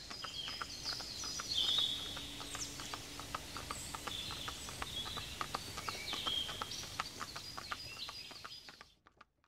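Birds chirping and singing, with many short high chirps and quick gliding notes over a soft background hiss and scattered faint clicks. It cuts off abruptly near the end.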